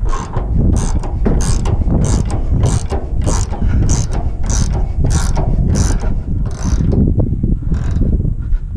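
Manure spreader floor conveyor running: its chain and slats clank in a steady rhythm about every two-thirds of a second, over the low steady running of the drive. The clanks thin out near the end.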